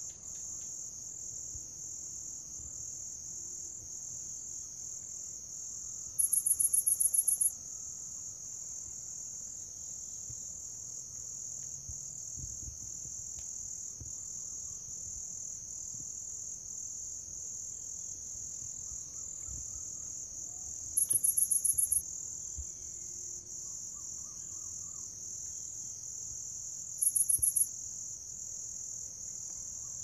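Chorus of grass insects such as crickets chirping steadily in a fast, high pulsing trill, with a louder and higher trill from a nearer insect three times: about six seconds in, just past twenty seconds, and near the end.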